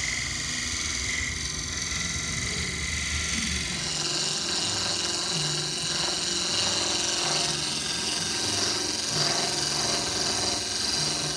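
Wood lathe spinning while a hand-held turning tool cuts the wood: a steady machine tone with the hiss of cutting. About four seconds in the sound changes to a brighter, hissier cut as shavings fly off a small plug being tapered.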